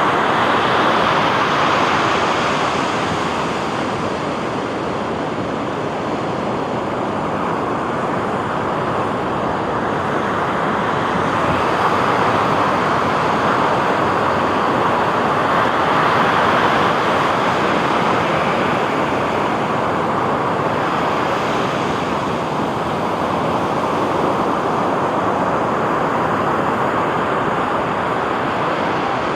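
Sea waves breaking on a beach, a continuous surf wash that swells and eases every few seconds.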